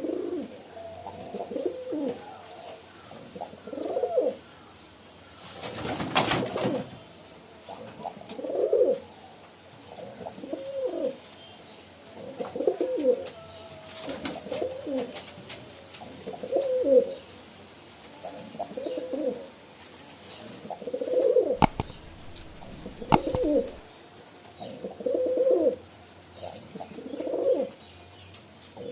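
Pigeons cooing over and over, a low coo roughly every two seconds. A short rustling noise comes about six seconds in, and two sharp clicks sound later on.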